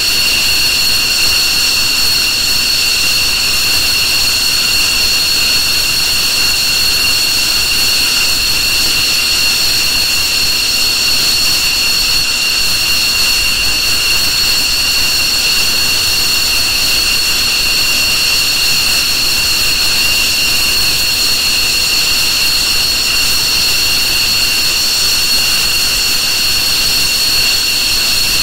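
F-15 twin turbofan jet engines running with a steady high-pitched whine over a loud rushing hiss, the pitch holding unchanged throughout.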